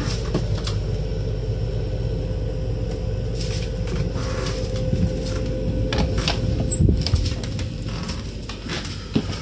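A wooden sliding door with glass panels is slid open, with scattered clicks and knocks of the door and of steps, and the loudest knocks come about seven seconds in. Under it all runs a steady low hum.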